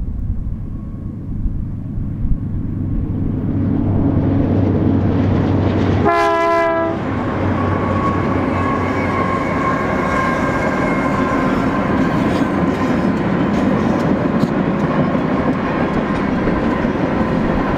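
Long string of diesel-electric locomotives rumbling past, growing louder as the lead units approach, with a short horn blast about six seconds in. While the units pass, a steady whine and wheel clicks over the rail joints join the engine noise.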